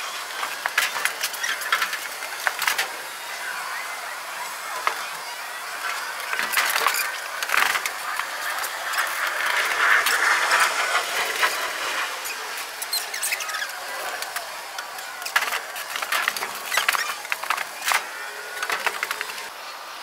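Irregular clicks, knocks and scraping of lumber being handled and worked, with no steady machine tone.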